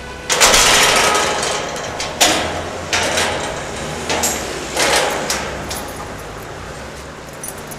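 Steel mesh gate clanking and rattling as its latch is worked and it is swung open: about five loud metallic bangs in the first five seconds, each ringing briefly.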